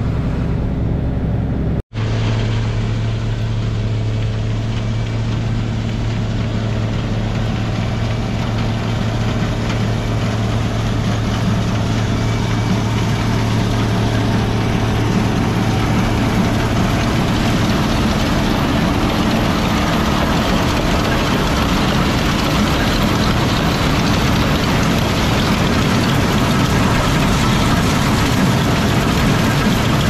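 Gleaner combine running while harvesting soybeans: a steady engine drone with a low hum, which about halfway through gives way to a rougher, fuller rush of machine noise from the header and threshing. The sound cuts out for a moment about two seconds in.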